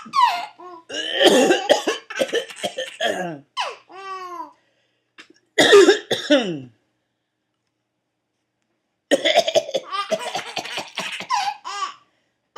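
A man coughing in repeated fits and a baby laughing in answer, the baby's short laughs falling in pitch. The coughing and laughter come in bursts, break off for about two seconds past the middle, then start again.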